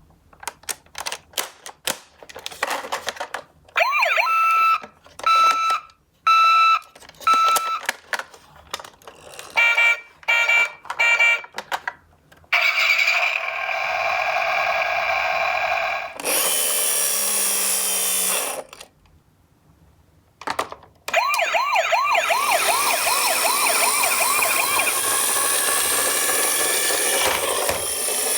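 Electronic sirens of toy ambulance minicars, several different siren sounds in turn: short repeated siren blasts from about four seconds in, then steadier tones and a brief noisy burst, and after a short pause a fast warbling wail. Light clicks and clatter come first.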